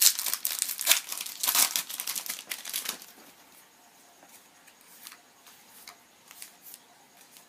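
Foil Yu-Gi-Oh booster pack wrapper being torn open and crinkled, a dense crackle for about three seconds, then only faint rustles and ticks of the cards being handled.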